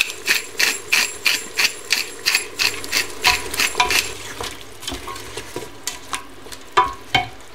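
Hand-twisted spice grinder ratcheting as seasoning is ground over the pot, sharp clicks about three a second for about four seconds. A few separate clicks follow later.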